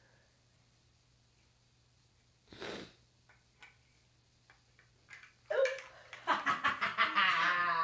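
A toddler's excited, pulsing laughing squeals fill the last two to three seconds. Before that come a short breathy puff and a few light clicks of large plastic building blocks.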